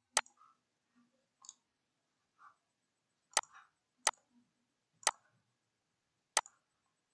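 Computer mouse clicking: five sharp single clicks at irregular intervals, with a few fainter soft sounds between them.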